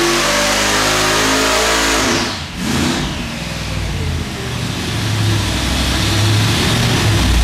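14-71-supercharged 588-cubic-inch Chrysler Hemi V8 under full load on an engine dyno near 5,800 rpm. About two seconds in the throttle closes abruptly and the engine drops off, falling back to a low, pulsing rumble as the revs come down toward 1,500.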